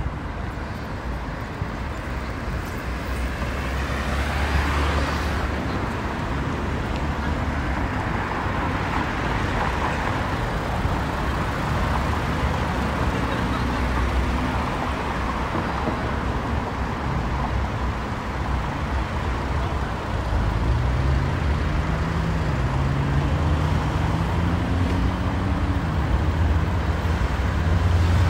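City road traffic: a steady wash of cars passing, swelling as vehicles go by. In the second half, one vehicle's engine note climbs steadily as it accelerates.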